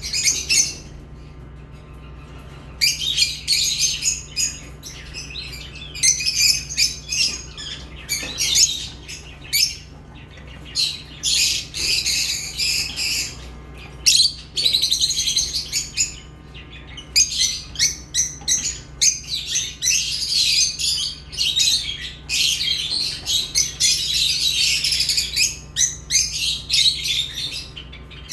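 Lovebirds chirping and chattering in long, shrill bouts of rapid calls, with only short pauses between them.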